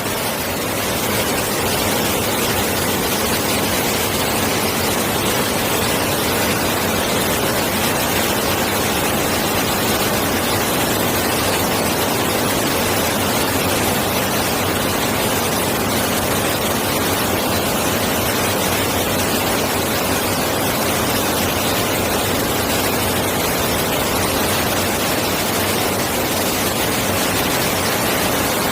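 Steady rushing of a mountain stream, a loud even hiss of running water with no change.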